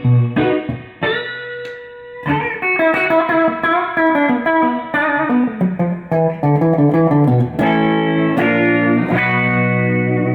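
A PRS semi-hollow electric guitar with a Bigsby is played clean: a few picked notes and a held note, then a quick run of single-note lead lines, then held chords near the end. No grounding buzz is heard, now that the bridge ground wire has been reconnected.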